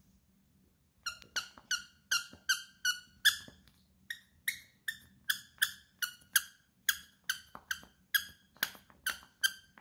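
Squeaker in a plush toy squeaking over and over as an American Akita puppy bites down on it. The short, high squeaks begin about a second in and come about three a second, with a brief pause midway.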